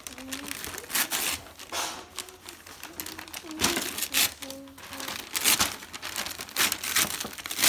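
Gift-wrapping paper torn and crinkled by hand as a present is unwrapped: a string of short rips and rustles.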